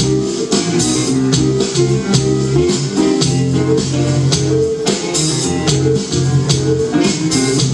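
Live band playing: guitars and a drum kit with cymbals keeping a steady beat.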